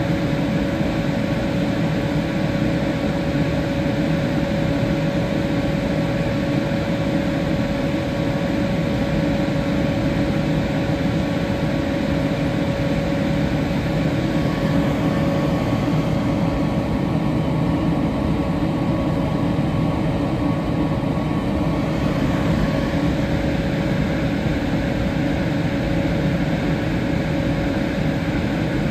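Steady running hum of a standing SBB Cargo electric locomotive's cooling blowers, mixed with the rolling rumble of a freight train of tank containers and container wagons passing behind it. A higher whine in the hum dies away about 22 seconds in.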